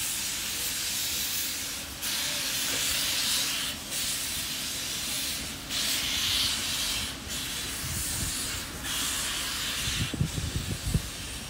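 Steam locomotive Robert Dollar #3 pulling away with steam blowing from its open cylinder cocks: long bursts of loud hiss, one after another every second and a half to two seconds, coming a little quicker toward the end. Low thumps join in near the end.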